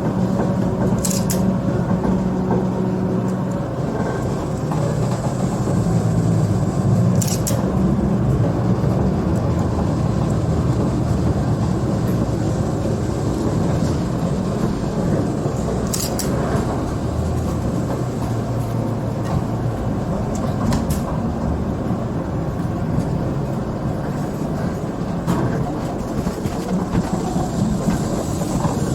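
Train running, heard from on board: a steady rumble with a few sharp clacks, typical of wheels crossing rail joints and points.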